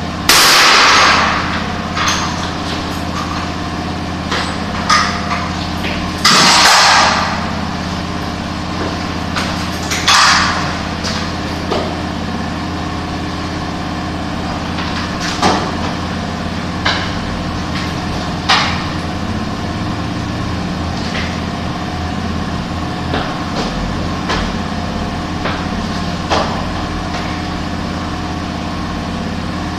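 Construction work over a steady engine-like hum: scattered sharp knocks, and three loud hissing blasts of about a second each, near the start, about six seconds in and about ten seconds in.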